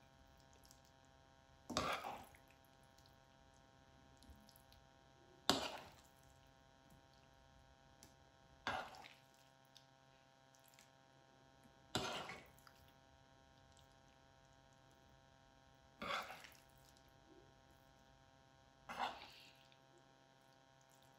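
Serving spoon scraping and knocking in a pan as chilli gobi (sauced fried cauliflower) is scooped out into a serving dish: six short scrapes a few seconds apart over a faint steady hum.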